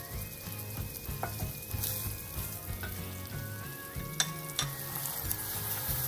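Diced onions and garlic frying in oil in a pan, a steady sizzle with crackling. A few sharp clicks, one about a second in and two close together about four seconds in.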